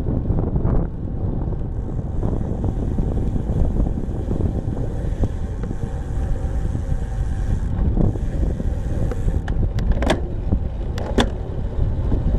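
Steady rumble of wind and tyres on an asphalt path, picked up by a bicycle-mounted camera while riding. Near the end come two sharp clicks a little over a second apart.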